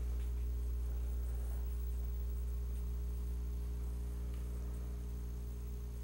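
Steady electrical mains hum with a stack of overtones, with no other clear sound above it.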